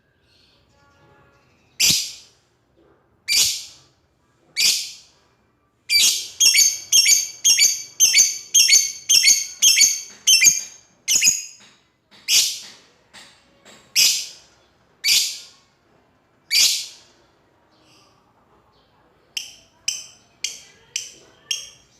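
Lovebird calling out to a rival with shrill, high-pitched calls. Single sharp shrieks come a second or more apart, broken in the middle by a rapid run of about three calls a second and by a quicker, fainter run near the end.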